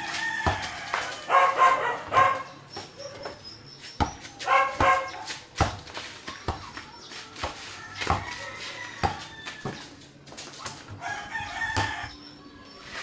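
Roosters crowing several times, with the dull thuds of a basketball being dribbled on packed dirt between the crows.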